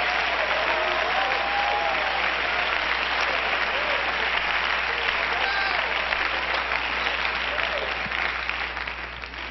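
A large congregation applauding, with a few voices calling out over the clapping. The applause dies down near the end.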